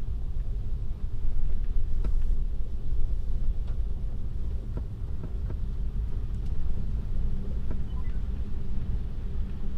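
Road noise of a Tesla electric car driving on snow-covered roads: a steady low tyre rumble, with scattered faint clicks and knocks.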